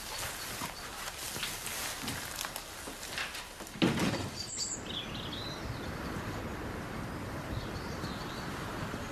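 Light clicks and shuffling, then a single loud thump a little under halfway through, followed by steady outdoor ambience with a few bird chirps.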